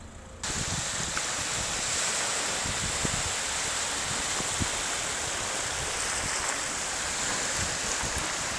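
Small sea waves washing and lapping over a rocky shoreline, a steady rushing noise that starts abruptly about half a second in, with wind buffeting the microphone underneath.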